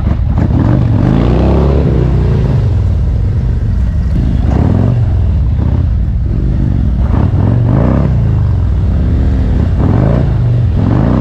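Harley-Davidson motorcycle's V-twin engine pulling away and riding off, a loud low rumble whose pitch rises and falls several times as it revs.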